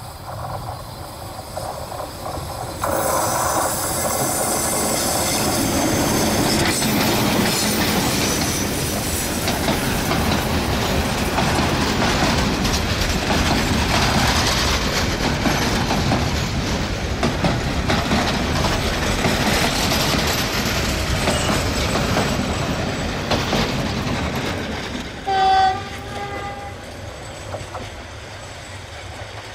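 Passenger coaches of a train passing close by, steel wheels clattering over the rails inside a steady rush of running noise. The noise rises sharply about three seconds in and fades near the end. Shortly before the end a brief, loud pitched tone sounds.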